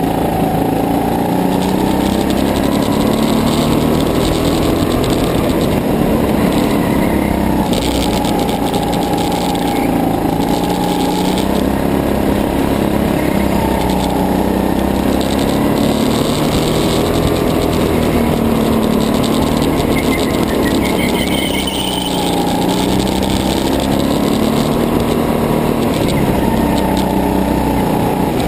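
Racing go-kart's small engine running hard from on board the kart, its pitch climbing along the straights and dropping into the corners, over and over every few seconds.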